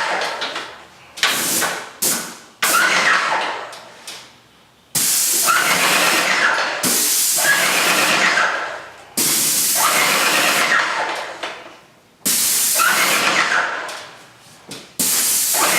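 Paint sprayer hissing in repeated bursts of a few seconds each, every burst starting abruptly and trailing off.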